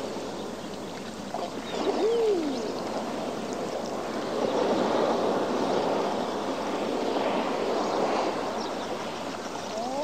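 Sea waves washing against a rocky shore, swelling and easing every few seconds. A brief swooping cry rises and falls about two seconds in.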